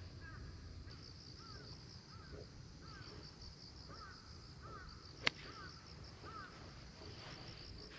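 Faint outdoor ambience: a bird calling over and over in short chirps, about two a second, over a steady high insect drone. One sharp click about five seconds in.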